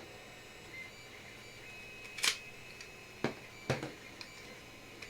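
A few sharp clicks and light knocks of hard 3D-printed plastic pieces being taken apart and set down, the loudest a little over two seconds in.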